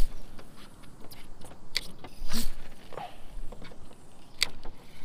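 Fishing reel being cranked on a retrieve: a geared mechanical ticking with a few sharp clicks, the loudest about two and a half seconds in.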